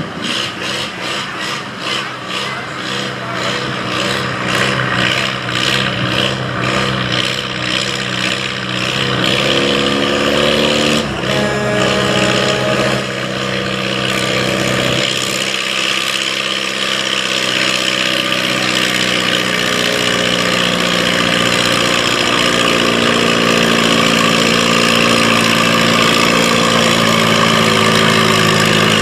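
Farm-class pulling tractor's engine under a pull: a pulsing, uneven note for the first few seconds, then the pitch climbs as it revs up, with a sharp knock partway through, and it holds at high revs to the end with a high whine over it.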